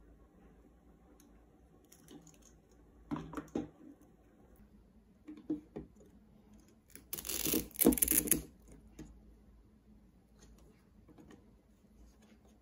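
Hands handling a small plastic-framed drone on a wooden table: a few light clicks and knocks, then a louder rustling scrape lasting about a second just past halfway, and faint ticks after.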